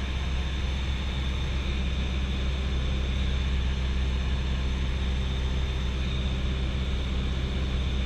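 Cessna 172SP Skyhawk in flight heard from inside the cockpit: its four-cylinder Lycoming engine and propeller make a steady drone, with wind rushing over the airframe.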